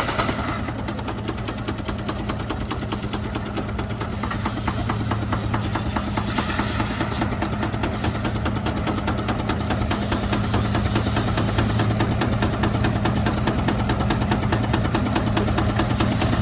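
Engine running steadily with a rapid, even knocking beat over a low hum, getting a little louder toward the end.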